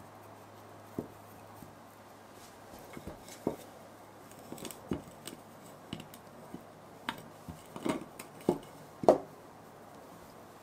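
Kitchen items being handled: a dozen or so light, irregular taps and knocks, coming closer together in the second half, with the loudest knock near the end.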